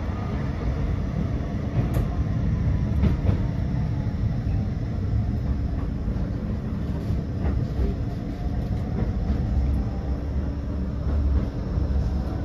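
Blackpool tram running along the track, heard from inside the car: a steady low rumble of wheels on rail with a faint steady hum and a few light clicks and knocks.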